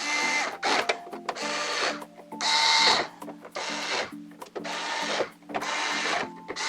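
Cordless electric screwdriver, set to its lowest torque, driving motherboard screws into a PC case in repeated short runs of about half a second to a second, with a motor whine in each run. Background music plays underneath.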